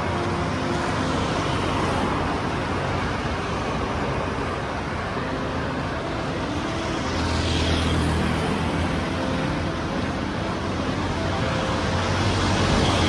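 Steady road traffic noise, with a vehicle engine growing louder and passing about seven to ten seconds in.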